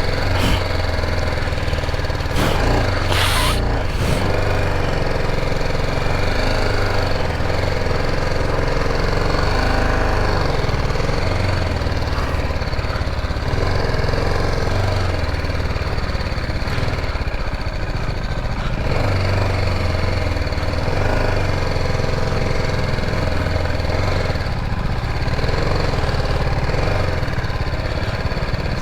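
Motorcycle engine running under way, its pitch rising and falling as the throttle changes over rough, off-road ground. A short rush of noise comes about three seconds in.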